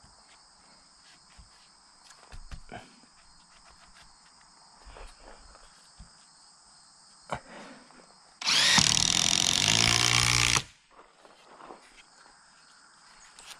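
Cordless DeWalt impact driver driving a long screw through a wooden angle brace into a timber beam, in one steady run of about two seconds starting about eight and a half seconds in. Faint knocks from handling the wood come before it.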